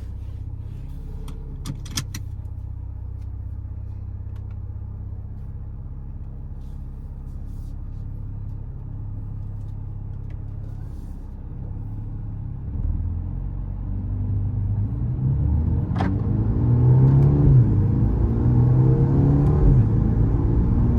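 Mercedes-AMG A35's turbocharged 2.0-litre four-cylinder engine running steadily at low revs, then pulling harder from about twelve seconds in, getting louder as the revs climb, drop back and climb again. A couple of short sharp clicks cut through, one early and one about two-thirds of the way in.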